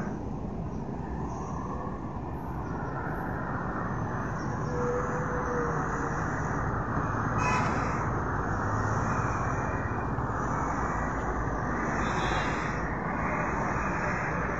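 Steady rumble of road traffic, growing a little louder about four seconds in.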